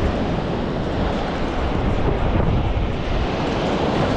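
Strong wind buffeting the microphone over the steady noise of ocean surf.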